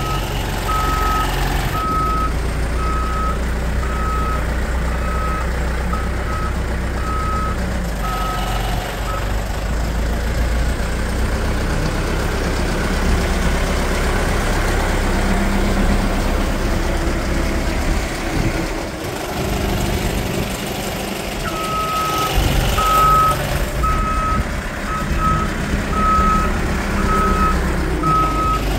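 Manitou MT1337 telehandler's diesel engine running, with its reverse alarm beeping steadily at about one beep a second. The beeping stops about nine seconds in and starts again about seven seconds before the end, while the engine carries on.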